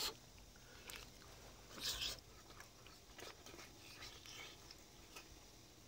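Quiet eating sounds as two people eat grilled pufferfish milt (shirako) by hand: soft chewing and mouth noises with a few faint clicks, and one louder mouth sound about two seconds in.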